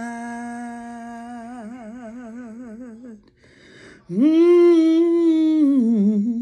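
A woman singing a cappella, holding a long note on "God" with a widening vibrato, then a breath, then a louder wordless hummed note held and falling away with vibrato near the end.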